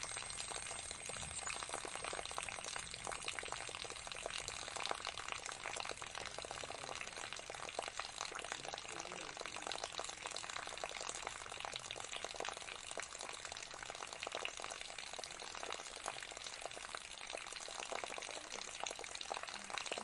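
Small tiered pot fountain: water pouring steadily from a tilted jug into a pot and trickling from the pot's lip into the basin below, a continuous splashing and dripping.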